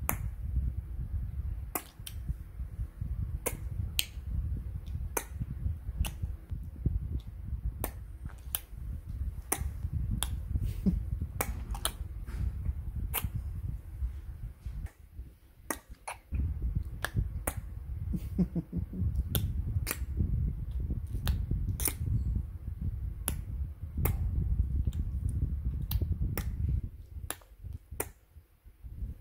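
Sharp tongue clicks of a 'tic-tac' clicking game, repeated irregularly about once a second, over a low rumble of handling or breath noise close to the phone microphone. The rumble stops a couple of seconds before the end, and the clicks go on.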